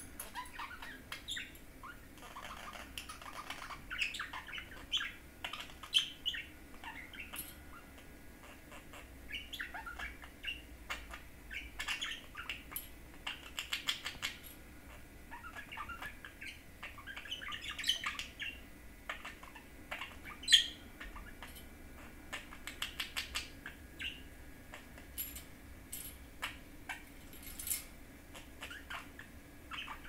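Budgerigar chattering and warbling into a small metal bell in quick, varied chirps, with scattered sharp clicks. The loudest click comes about twenty seconds in.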